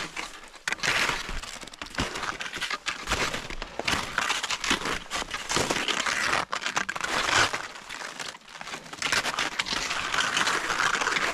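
Footsteps crunching in snow, an irregular run of crisp crunches and crackles.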